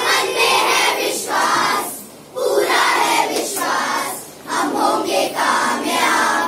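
A group of children singing a song together, in phrases broken by short pauses about two and four and a half seconds in.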